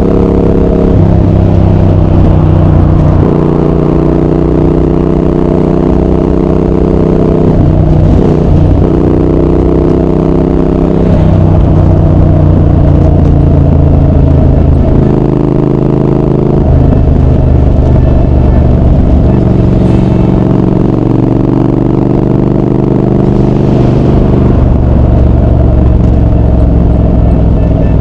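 Triumph Speed Twin 1200's 1200 cc parallel-twin engine and exhaust running on the move, its pitch stepping up and down every few seconds as the bike accelerates, shifts gears and eases off.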